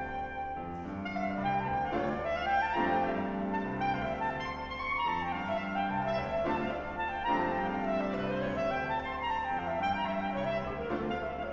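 Clarinet and grand piano playing classical music together: the clarinet plays a melody of runs that climb and fall over sustained piano chords.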